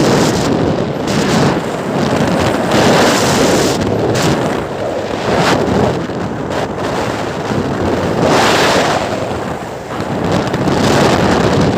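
Wind buffeting the microphone: a loud rushing noise that swells and eases in gusts, every second or two.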